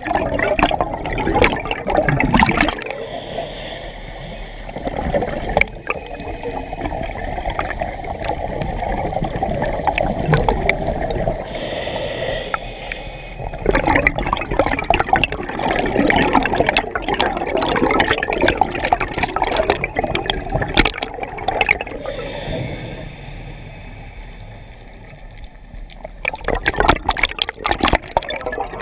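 A scuba diver's own breathing through a regulator, heard underwater from a mask-mounted camera housing: exhaled bubbles bubbling past in loud bursts every several seconds, with quieter hissing stretches of inhaling in between.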